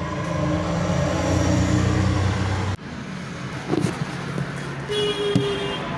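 A steady low motor hum that cuts off abruptly about three seconds in, followed by quieter background noise with a few light knocks and a short tone near the end.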